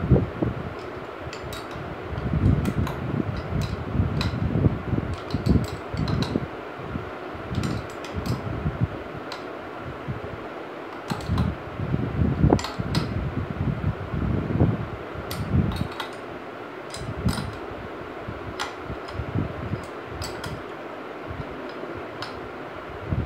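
Small hand tool clicking and clinking on the hub bolts of a motorcycle rear wheel as they are tightened, with irregular dull knocks from handling the wheel hub, over a steady background hum.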